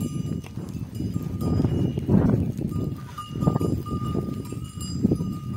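Bells on a walking flock of goats and sheep ringing in a steady tinkle, over a low, uneven rumble.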